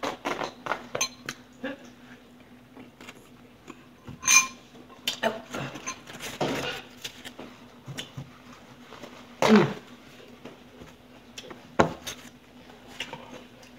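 Eating utensils clicking, scraping and clinking against bowls during a meal, irregularly, with one ringing clink about four seconds in.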